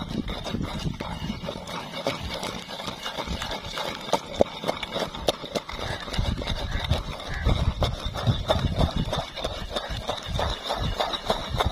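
Wooden pestle grinding a wet almond, melon-seed and fennel paste in a clay mortar bowl, with rapid, uneven knocks and scrapes of wood on clay and dull thumps.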